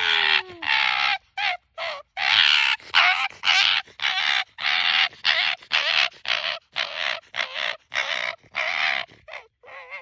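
Arctic fox giving a rapid run of short, raspy calls, two or three a second, while being petted: the sound of a happy, excited fox.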